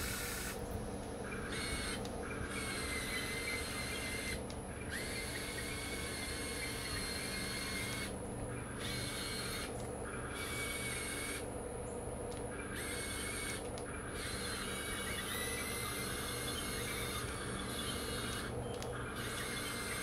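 Huina 1580 RC excavator's electric motors and gearboxes whirring, with a steady low hum under a higher whine that stops and starts about ten times.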